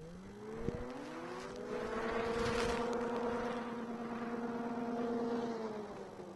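Ski-Doo Summit 600 HO E-TEC two-stroke twin engine revving up steeply, holding a high steady rev for a few seconds, then dropping back near the end, while the sled is being rolled over. There is a sharp knock about a second in.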